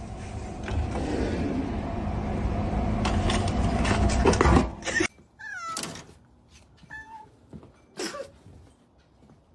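A loud, rough, steady noise for about five seconds that cuts off abruptly, followed by a few short, high cat meows and some sharp taps.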